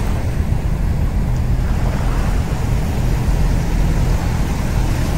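Ocean surf breaking and washing up the beach: a loud, steady rush with a deep rumble underneath.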